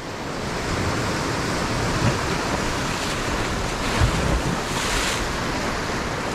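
Ocean surf breaking and washing up a beach: a steady rushing wash that swells over the first second, with a brief louder rush of spray about five seconds in.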